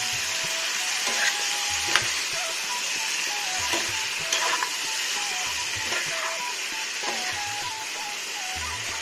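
Chicken and potato pieces sizzling in hot oil in a kadai while a spatula stirs them. A few sharp taps and scrapes of the spatula on the pan come through the sizzle.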